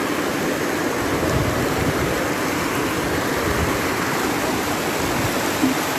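Floodwater rushing and churning as it pours across a road, a steady, continuous rush of water.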